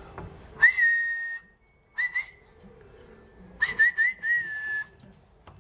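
A person whistling to call puppies: a rising note held for most of a second, two short chirps, then three quick rising chirps and a longer held note.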